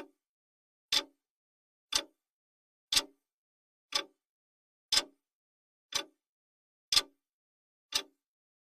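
Clock ticking sound effect, one sharp tick each second with silence in between.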